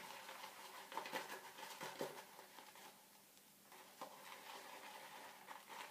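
Shaving brush whipping shaving-soap lather in a bowl: faint, uneven wet swishing and small clicks of the brush working the foam.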